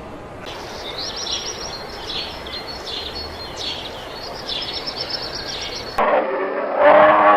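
Small birds chirping and twittering rapidly, high-pitched, over a steady outdoor hiss. About six seconds in, the sound cuts to a loud, low, drawn-out animal call.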